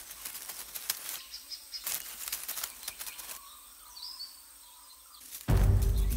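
Crackly rustling of dry leaf litter and soil in two spells of about a second and a half each, as the funnel-web spider moves, with faint bird chirps behind. Near the end, loud low music starts abruptly.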